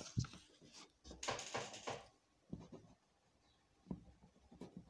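Faint rustling and handling noises of a paper sheet being moved, with a few small clicks and knocks.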